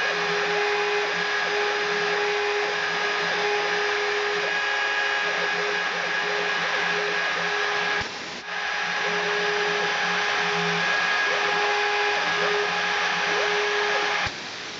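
Desktop CNC milling machine's spindle running with a steady whine. The sound drops away suddenly for a moment about eight seconds in and again near the end.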